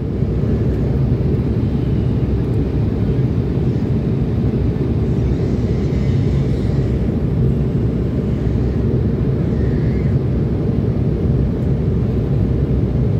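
Steady low cabin noise of an airliner on its approach, with the jet engines and rushing air heard from a window seat over the wing.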